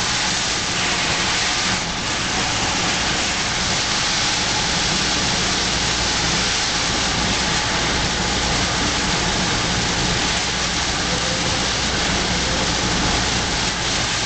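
Heavy rain falling steadily on a car's roof and windscreen, heard from inside the cabin, over a low steady engine and road hum.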